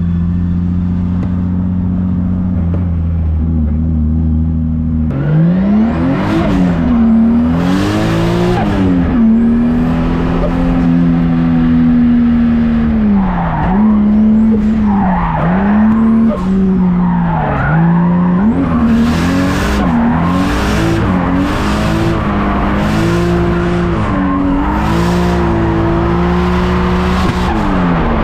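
BMW E36 drift car heard from inside the cabin: the engine holds a steady note for about five seconds, then revs up and down over and over as the car drifts, with tyres squealing in repeated bursts, most of them in the second half.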